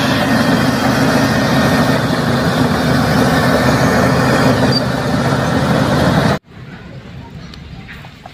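Bulldozer engine sound effect: a heavy engine running steadily. It cuts off abruptly about six seconds in.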